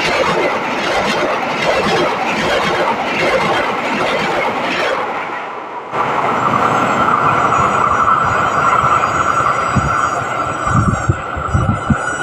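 A passing train: a steady rushing noise, then from about halfway a high steady tone over the train noise, with the low clack of wheels over rail joints near the end.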